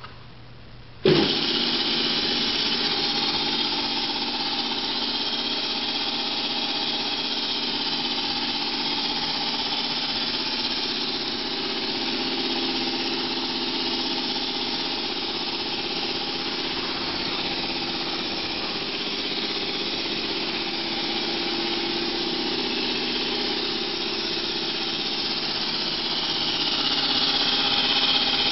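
Homebuilt belt-driven piston air compressor, a 5 HP electric motor turning a multi-cylinder pump, switched on about a second in: it starts abruptly and then runs steadily, a little louder near the end.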